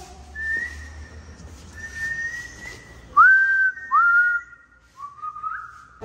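A person whistling a few pure notes. First comes one long held note, then two louder notes about three seconds in that swoop up and hold steady, and a short rising glide near the end.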